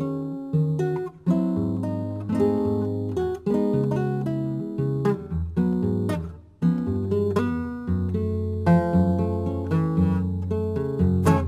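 Background music on acoustic guitar: strummed and plucked chords that ring out, with brief breaks between phrases.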